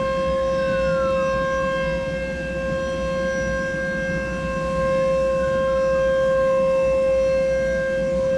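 Outdoor tornado warning siren sounding a loud steady tone, with a fainter siren pitch rising and falling about every four to five seconds behind it. Rain and passing traffic make a low rushing noise underneath.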